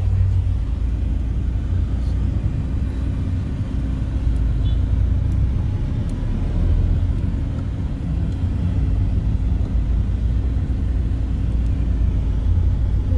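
Steady low rumble inside a moving car's cabin: engine and road noise while driving.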